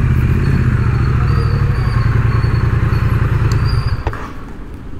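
Triumph Speed Twin 900's parallel-twin engine idling steadily, then cutting off suddenly about four seconds in as it is switched off.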